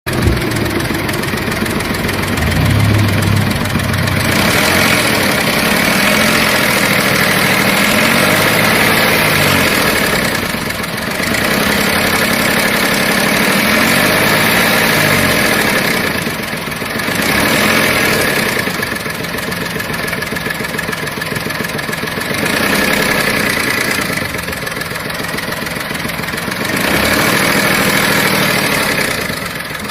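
Volkswagen Polo engine running, raised above idle and let fall back several times. This is the engine noise put forward as the car's problem.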